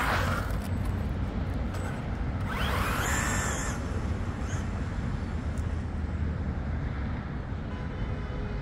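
Traxxas Ford F-150 Raptor R RC truck's electric motor whining in surges as it accelerates and backs off, with a rising and falling whine near the start and again about three seconds in. A steady low rumble runs underneath.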